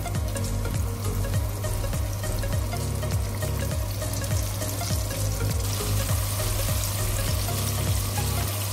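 Flour-coated chicken wings deep-frying in corn oil at about 350°F, a steady sizzle that grows louder and hissier about five and a half seconds in.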